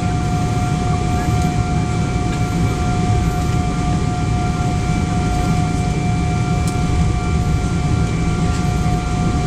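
Boeing 777-200ER cabin noise while taxiing: the jet engines at low taxi power give a steady low rumble with a steady whine of several tones.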